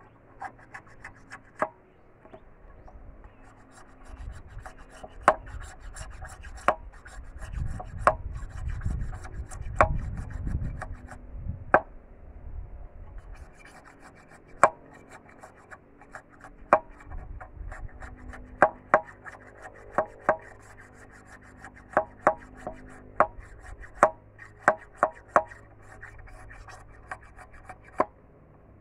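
A machete blade shaving and scraping a thin bamboo stick into a barbecue skewer: a quick, irregular series of sharp clicks and scrapes as the blade strokes along the bamboo. A low rumble runs underneath from about four to twelve seconds in.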